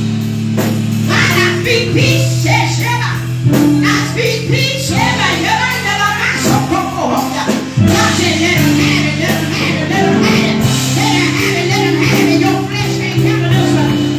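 Worship music: held chords that change every second or two, with singing over them.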